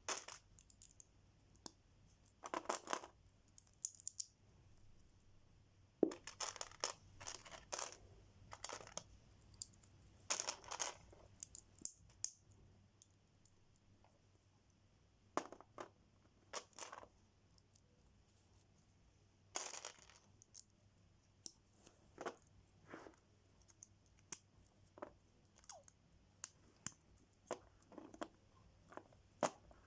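Plastic Lego pieces being handled: irregular sharp clicks and small clatters, mixed with short rustles, faint throughout with a few brief lulls.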